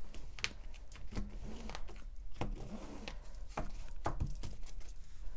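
Tarot cards being handled and shuffled by hand: an irregular run of light clicks and soft rustles of card stock.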